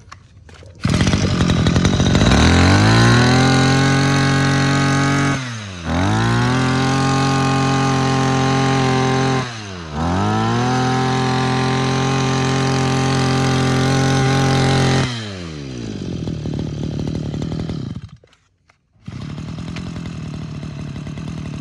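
Small two-stroke Maruyama brush-cutter engine pull-started from cold with primer and choke. It catches about a second in and is throttled up to a high-pitched whine three times, falling back between runs. It then drops to idle, stops briefly near the end, and is restarted warm with a light pull to idle again.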